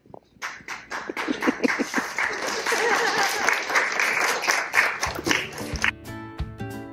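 Audience applauding, from about half a second in until it cuts off near six seconds. Music with guitar starts underneath about five seconds in.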